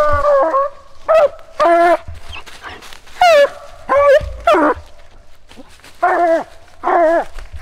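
Walker coonhound barking treed at the base of a tree: about eight loud, short, pitched barks, spaced unevenly. This is the chop of a hound that has a raccoon up the tree.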